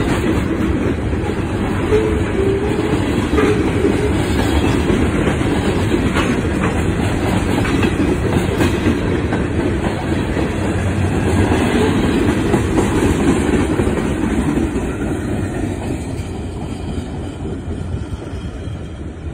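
CSX coke hopper cars rolling past on the rails: a steady rumble with wheels clacking, fading over the last few seconds as the end of the train goes by.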